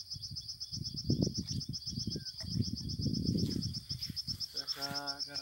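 Insects chirring steadily in a fast, even pulse, with irregular low rustling beneath and a short low hum near the end.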